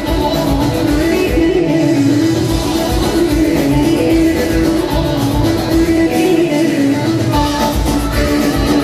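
Live Turkish folk dance music for a halay: a plucked-string melody over a steady beat, with the low drum dropping out briefly twice.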